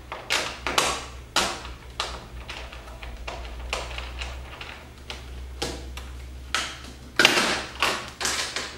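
Hands pressing and tapping a spoiler piece against a car's rear deck lid: a series of irregular taps and brushing handling sounds, about one or two a second, the loudest about seven seconds in.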